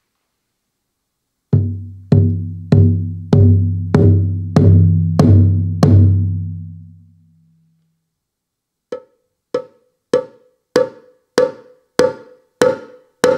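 Roland TAIKO-1 electronic taiko pad playing its Shuffle sound bank: eight evenly spaced hits of a deep drum sample that rings on after each stroke, then, after a short pause, eight short, higher knock-like hits at the same even pace.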